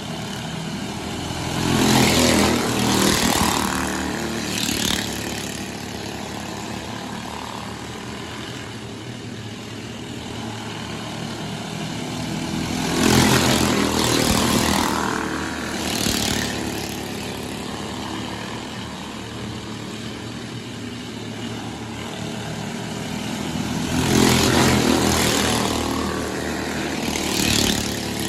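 A pack of small dirt-track race cars passing close by at speed three times, each pass swelling up and fading away, with several engines heard in each pass and the rest of the field running steadily in the distance between passes.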